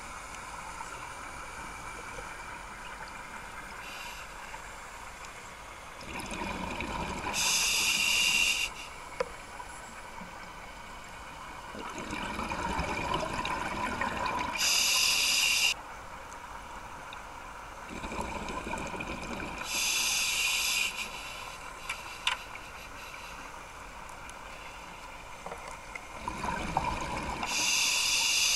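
Scuba diver's breathing through a regulator, heard underwater: four breath cycles about six to seven seconds apart, each a rumble of exhaled bubbles followed by a sharp hiss from the regulator.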